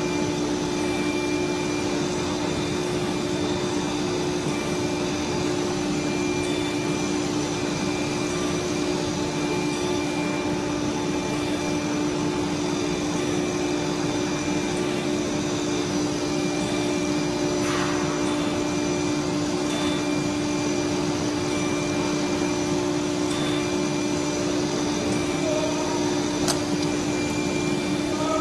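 CNC router running with its spindle and dust extraction on while cutting a furniture board: a steady machine drone with a strong low hum and several fainter steady whines.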